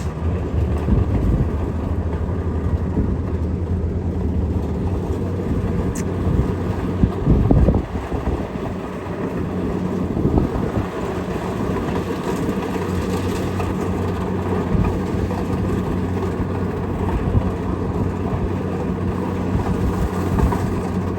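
Kubota DC688Q rice combine harvester running steadily while cutting rice, its engine and harvesting machinery making a continuous drone, with a louder low rumble about seven seconds in.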